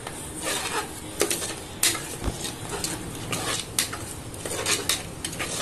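Spoon scraping and clinking against a pressure cooker pot while stirring frying masala, in irregular strokes.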